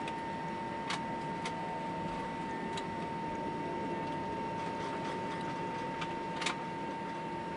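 Steady cabin noise inside an Airbus A320 taxiing, with the idling engines' steady whine. A few sharp ticks cut through it, the loudest about six and a half seconds in.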